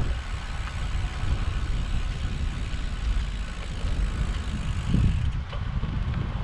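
Wind buffeting the microphone of a moving bicycle's handlebar camera: a steady low rumble, with a stronger gust about five seconds in.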